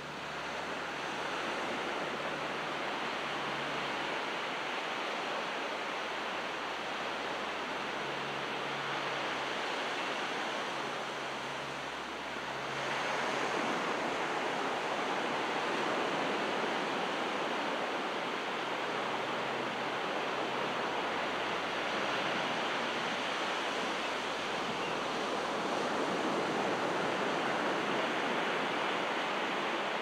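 Calm ocean surf: small waves breaking and washing up the shore in a steady rush, which grows louder about twelve seconds in.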